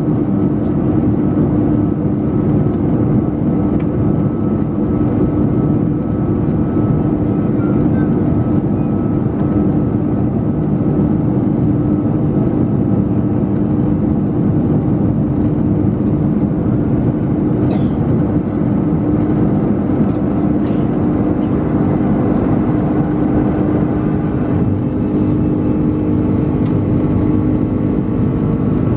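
Airbus A330-300 jet engines and airflow heard from inside the cabin during the climb after takeoff: a loud, steady rush with a constant low hum running through it. A few faint ticks come about two-thirds of the way through.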